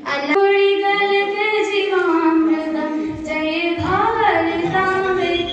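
A group of schoolchildren singing a song together in unison through microphones, with long held notes and slow glides in pitch.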